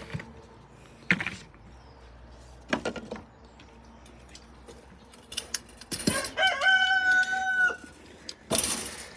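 A rooster crows once, about six and a half seconds in: a single drawn-out crow lasting just over a second. A few short knocks before it and a short burst of noise near the end.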